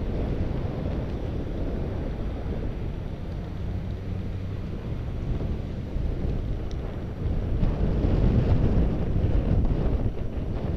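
Wind buffeting the microphone of a camera on a moving bicycle, a steady low rumble over street traffic, growing louder about seven seconds in.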